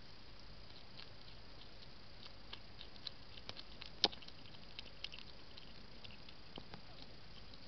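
An animal eating dry food from a plastic feeding dish: scattered small clicks and crunches of chewing and of its snout against the dish, with one sharper click about four seconds in.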